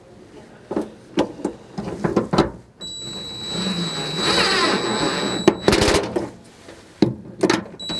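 Several knocks and clicks of parts being handled, then a small power tool runs for about three seconds with a steady high whine, ending in a loud clack; the whine starts again near the end.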